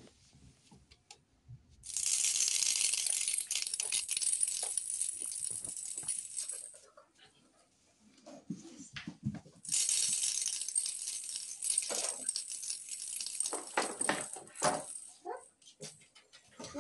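Rattling and crinkling of a cat-toy package being shaken, in two long spells of about five seconds each, with a few light knocks and clicks in between.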